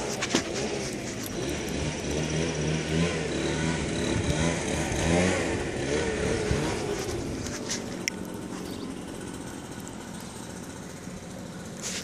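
An engine running, its pitch wavering up and down, loudest in the first six or seven seconds and then dropping to a fainter hum.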